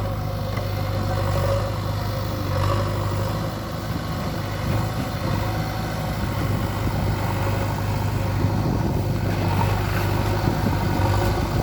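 Heavy diesel engine running steadily, a low even drone with no change in speed.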